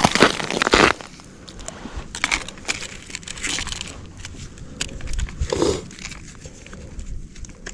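Snow and ice crunching in irregular, uneven strokes, loudest in the first second and softer afterwards.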